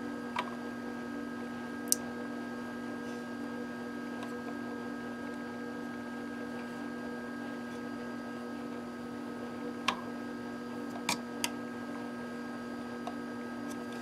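A handful of short, sharp clicks from small parts and wire being handled against a metal chassis, two of them close together near the end, over a steady electrical hum.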